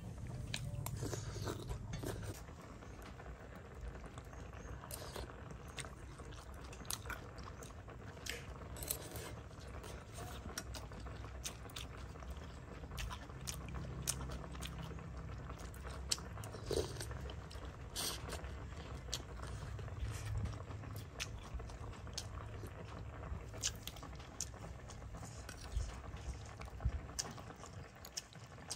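Metal spoon scooping soup from a ceramic bowl: scattered light clinks and small liquid sounds over a low steady hum.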